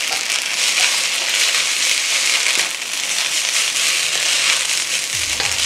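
Rice noodles with shrimp, chicken and pork sizzling and crackling in a hot wok as they are stirred together.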